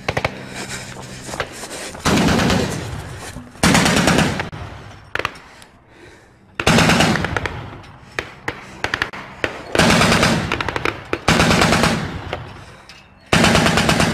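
Truck-mounted machine gun firing in repeated short bursts of automatic fire, about seven bursts of half a second to a second each, separated by brief pauses.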